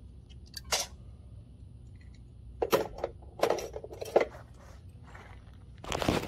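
A few short metallic clinks and knocks, like tools or parts being handled, over a low steady hum. Near the end comes a louder, longer knock as the camera is moved.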